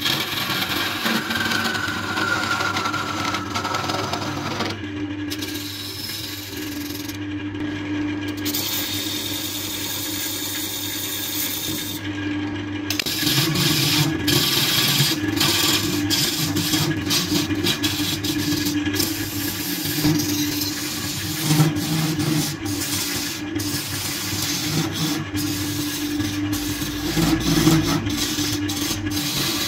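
Wood lathe running steadily with a low motor hum while a turning tool cuts into the spinning wooden blank, a continuous scraping hiss of shavings. The cutting breaks off briefly a few times in the first half, then runs on with many short crackling catches.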